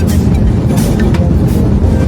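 Background music with a recurring percussive beat over a steady low rumble.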